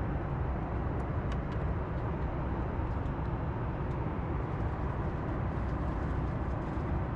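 Steady cabin noise of a Boeing 737 MAX 8 in flight, the rumble of engines and airflow, with a few faint clicks from the tray table being unfolded.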